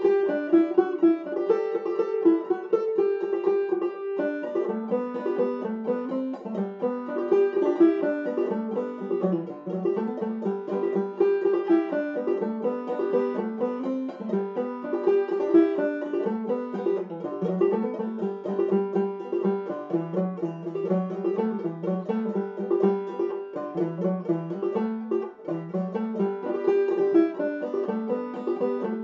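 Open-back five-string banjo played clawhammer style: an old-time tune in the key of G, a steady unbroken run of plucked notes.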